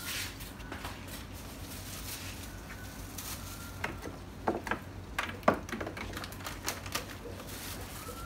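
Sharp crackles and clicks of a plastic bag being handled, clustered over about two seconds midway. A few faint, short, rising squeaks from newborn puppies.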